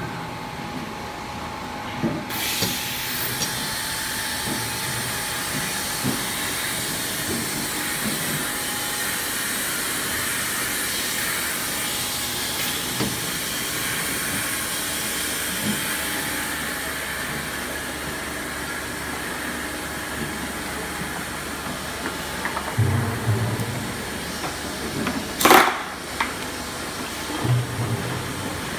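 Six-nozzle filling machine for 25-litre jerrycans running with a steady hiss that starts suddenly about two seconds in. A short sharp burst comes near the end, along with two brief low hums.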